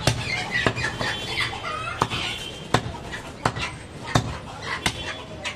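A heavy butcher's knife chopping goat meat on a wooden log block, a steady chop about three times every two seconds. Chickens clucking in the background.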